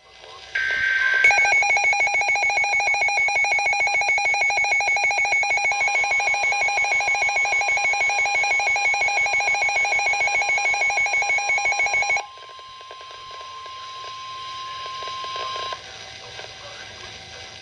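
Emergency Alert System alert tones: a brief data-burst tone, then a loud, rapidly pulsing alarm tone for about eleven seconds that cuts off suddenly. A fainter steady single tone carries on for a few more seconds.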